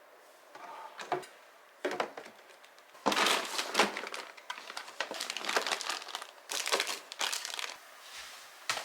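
Plastic packaging crinkling and rustling as it is handled: two short rustles, then about six seconds of dense, irregular crinkling.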